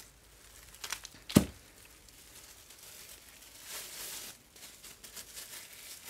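Plastic crinkling and rustling from thin disposable plastic gloves and a plastic bag as hands handle a dismantled lipo pouch cell, with one sharp knock about a second and a half in and a longer rustle near the middle.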